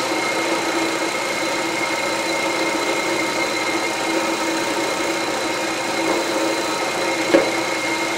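Milling machine spindle running at a steady speed, giving an even hum with a few constant tones. A single short click about seven seconds in.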